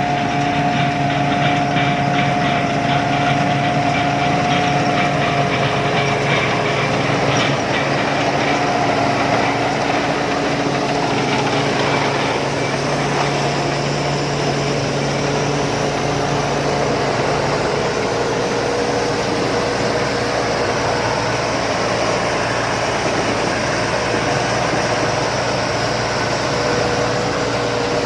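Rice combine harvester's engine running steadily, with a droning whine that settles somewhat lower in pitch about halfway through.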